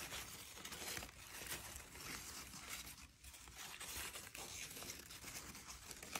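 Faint crinkling and crackling of old, yellowed newspaper being pulled apart and unfolded by hand, with small tearing sounds as the aged paper gives way. It is briefly quieter about halfway through.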